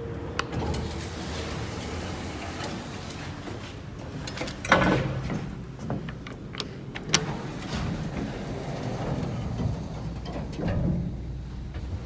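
Hitachi passenger elevator in use. A call button clicks, the sliding doors open with a loud rumble about five seconds in, and after another button click the doors close near the end.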